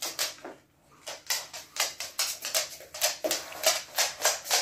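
A dog panting fast and evenly, about four breaths a second, with a short break just under a second in.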